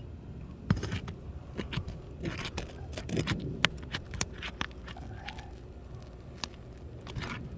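Asphalt shingles being pried apart with a metal tool: scraping and crackling with a scatter of sharp clicks and ticks as the stuck shingles tear loose.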